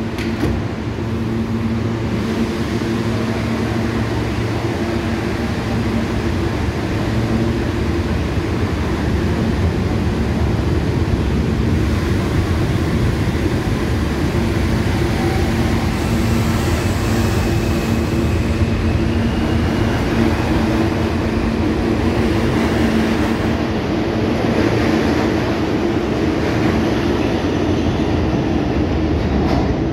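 R160 subway train pulling out of a station and accelerating past, its cars rumbling by on the rails with a steady motor hum throughout. A faint high whine joins in for a few seconds in the middle.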